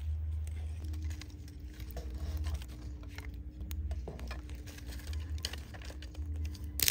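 Small wood fire burning under a cooking pot, crackling with irregular small pops over a low rumble, and a sharper, louder pop near the end.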